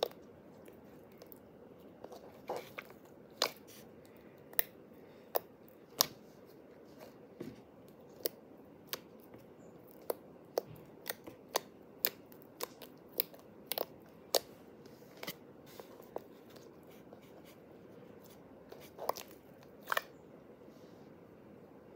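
Fingers poking and squeezing soft, glossy blue slime, giving sharp wet clicks and pops, roughly one a second, then a pause of a few seconds before two more near the end.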